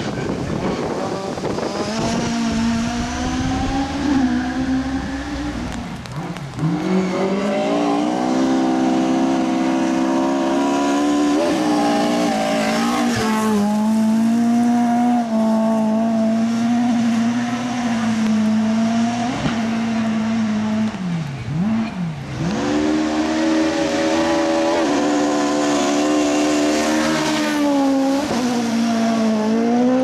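Ford Sierra RS500 Cosworth rally car's turbocharged four-cylinder Cosworth engine at full throttle through corners, revving high for long stretches with a few short lifts and gear changes.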